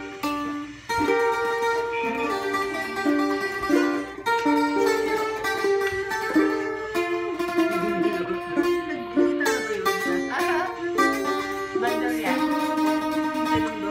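Octavina, the Filipino rondalla string instrument, played solo: a plucked melody of bright, ringing notes in paired strings.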